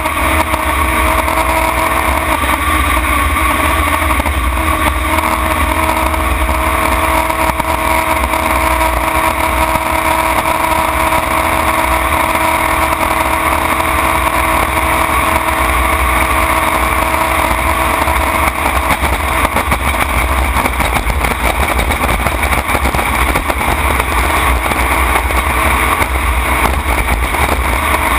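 Race jet boat's engine running flat out at a steady pitch, heard from inside the open cockpit at speed with heavy wind rumble on the microphone.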